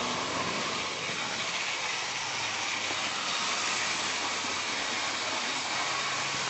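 Lionel 2025 postwar steam locomotive and its train running on O-gauge tubular track: a steady whirring hiss from the motor and wheels, with a faint low hum underneath.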